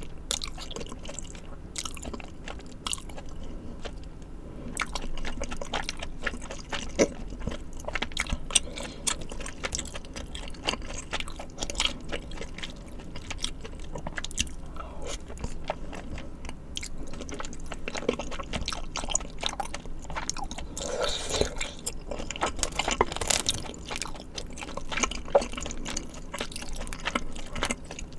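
Close-miked eating of spicy tteokbokki and fried side dishes: wet chewing and biting with many small mouth clicks and occasional crunches. There is a busier, louder stretch a little past the middle.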